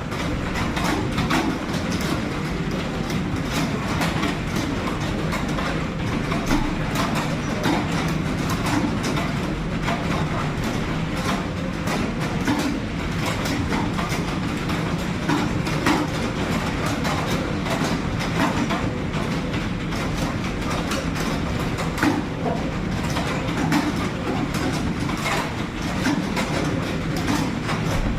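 Fast typing on computer keyboards: a dense, unbroken clatter of key clicks over a steady low hum.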